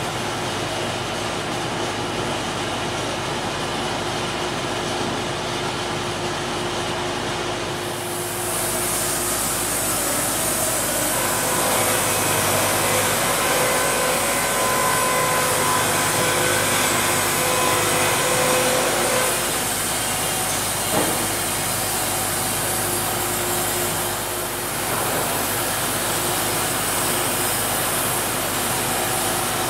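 Wood-Mizer LT50 band sawmill running steadily, with a high hiss of sawing joining about eight seconds in. A single sharp knock about 21 seconds in.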